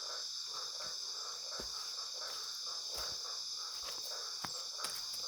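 Night insect chorus, crickets shrilling steadily in a high band, with a few faint clicks.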